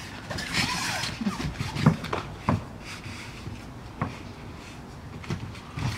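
Dull thumps and shuffling of bare feet and bodies moving on foam mats, with a few separate knocks about a second or two apart.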